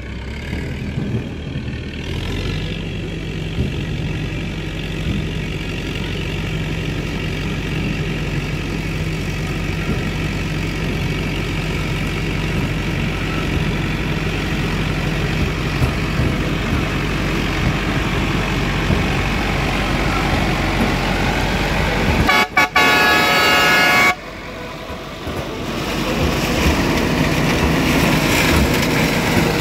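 IMT 577 DV tractor's diesel engine running under load as it pulls a SIP Tornado 80 corn picker through the crop, growing louder as it approaches and passes close by near the end. About two-thirds of the way in, a loud horn blast of about two seconds cuts in and stops abruptly.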